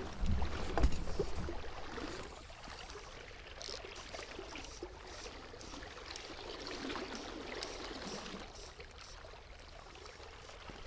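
Faint, steady rush of river water around a wading angler, with a few soft handling knocks in the first second.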